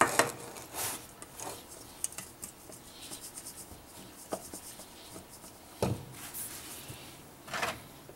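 Small fish being tossed by hand in flour in a stainless steel bowl: a soft, continuous rubbing and scraping of floury fish against the metal, with a few sharper knocks against the bowl near the start, about six seconds in and near the end.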